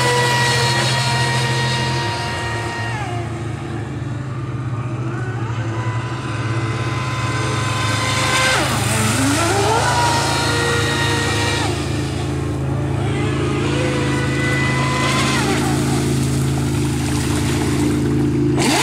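Joysway Invincible Razor RC speedboat running on six cells: its electric motor whines at a high pitch that drops and climbs with the throttle, with a sweep up and back down about nine seconds in, over a steady low hum and the hiss of spray.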